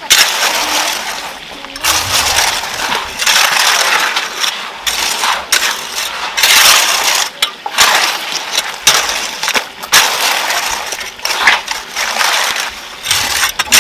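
Stones and rubble scraping and clinking as they are worked by hand, in repeated rough bursts with sharp clicks.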